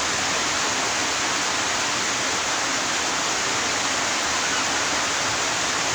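Steady rushing noise, an even hiss with no rhythm or pitch.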